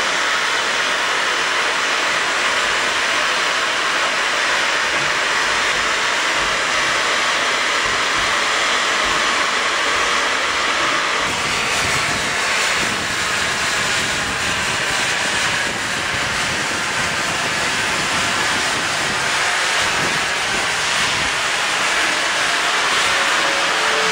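FS Gr. 625 steam locomotive standing with steam venting: a steady, loud hiss with no beat.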